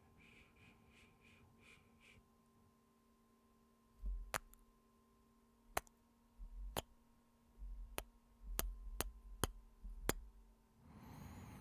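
A string of about eight sharp clicks, each with a low thump, spread over some six seconds close to the microphone, over a faint steady hum; a soft rushing noise rises near the end.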